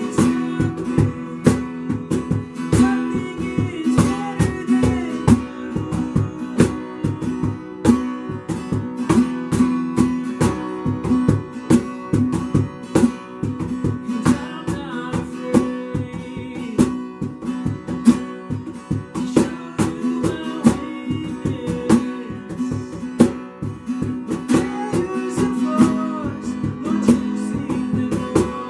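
Acoustic guitar strumming chords in a steady rhythm, an instrumental stretch of a worship song.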